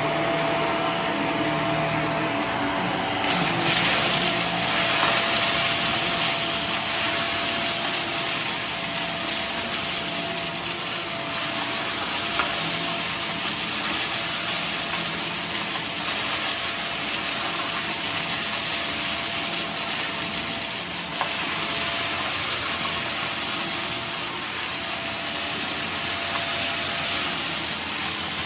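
Vacuum cleaner running steadily with a constant motor whine; its sound turns brighter and fuller about three seconds in.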